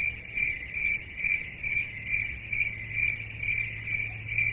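Crickets chirping, an even high-pitched chirp repeating about two and a half times a second, over a faint steady low hum.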